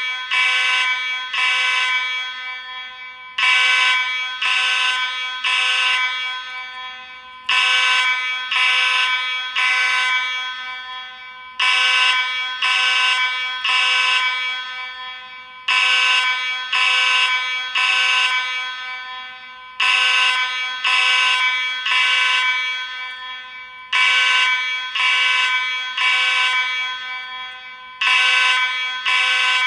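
Space Age AV32 fire alarm horn sounding in the temporal-three evacuation pattern: three loud, harsh blasts, then a pause, repeating about every four seconds.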